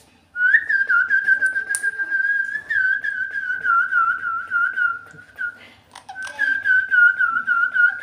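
Loud, long whistling held at one high pitch with a quick wavering warble, breaking off about five and a half seconds in and starting again a moment later.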